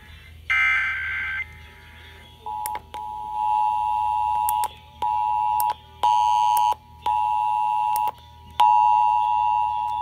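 Emergency Alert System test broadcast over FM radio. About half a second in comes a one-second burst of SAME header data tones. From about two and a half seconds, the two-tone EAS attention signal (853 and 960 Hz) sounds in five chopped segments separated by clicks, over a low hum.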